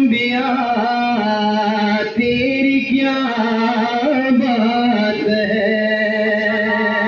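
A man's solo voice singing a manqabat, a devotional praise poem, into a microphone. He holds long notes and glides between pitches.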